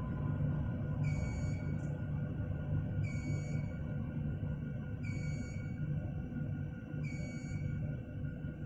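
Background music: a steady low drone under a bright, high pulse that repeats about every two seconds.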